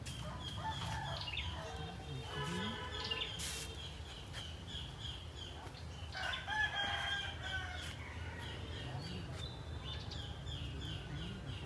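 A rooster crowing twice, a few seconds apart, with small birds chirping in quick runs of short high notes.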